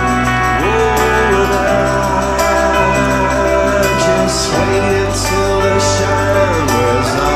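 Instrumental music: held organ-like chords over a steady bass, with a melody line that slides up and down in pitch.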